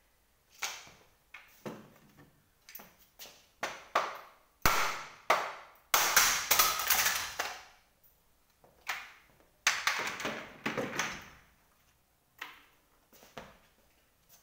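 Knocks and clatter of an office chair's five-star base and its casters being handled and set about: scattered light knocks at first, a dense, loud rattling clatter about five seconds in, another burst of clatter about ten seconds in, and a few light knocks near the end.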